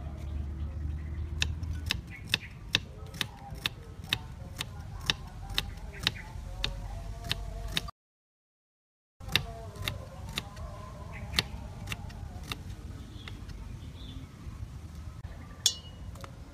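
Kitchen knife chopping on a wooden cutting board: steady, even taps about two to three a second. The sound cuts out completely for about a second just before halfway, and there is one sharper, ringing click near the end.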